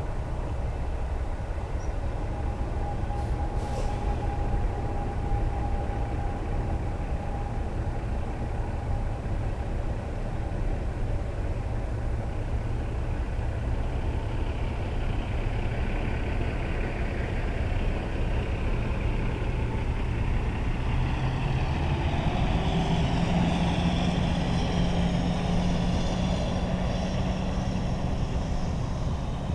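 Semi truck's diesel engine running with a steady low rumble. About twenty seconds in, its note rises and holds higher.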